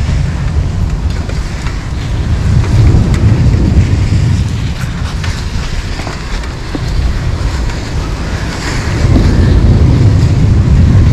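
Wind buffeting the microphone: a loud, rough low rumble that swells and eases in gusts, strongest near the end.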